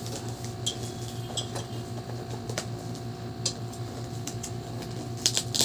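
Gift wrapping paper being handled and unwrapped: scattered short crinkles and crackles, with a louder cluster near the end, over a steady low hum.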